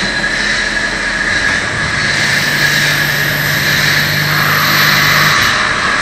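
CNC turning lathe running while machining a brass fitting, the spindle turning under a spray of cutting coolant: a loud, steady hiss and machine noise. A low hum comes in about two seconds in and stops a little after five.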